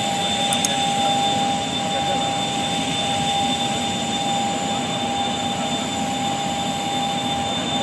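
Jet aircraft engine running steadily: a constant rushing noise with a high whine held at one pitch.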